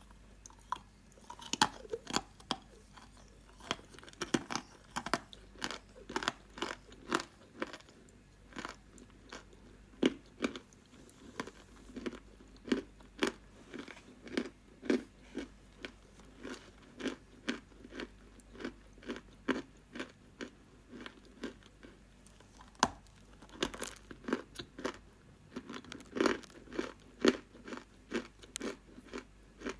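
Close-up chewing of a dry, crumbly edible clay, a rapid run of sharp crunches at about two a second.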